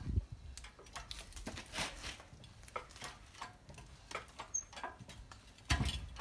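Hydraulic shop press being worked to push a front wheel hub out of its rusted steering knuckle: irregular light ticks and creaks of metal under load, with a low thump at the start and another cluster of knocks about a second before the end.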